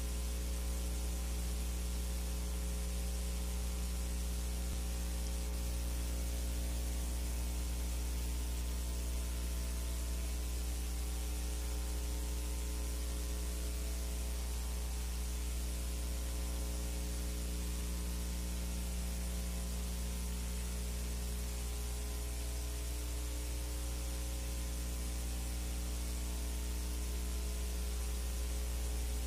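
Steady electrical hum with a layer of hiss and no other sound: the noise floor of a silent film's transfer, with nothing recorded on the soundtrack.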